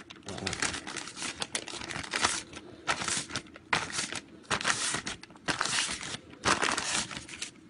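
A crumpled sheet crinkling and rustling in the hands as it is handled and pressed onto wet spray paint, in a run of irregular crackles that come and go.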